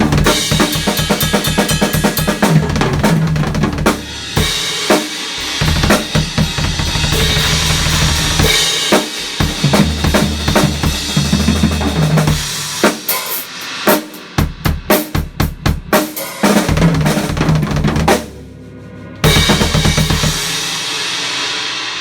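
Sonor acoustic drum kit played hard in a busy groove of bass drum, snare and cymbals. About two-thirds through comes a run of separate heavy hits, then a short drop-off, and a final big hit whose cymbal ring fades out at the end.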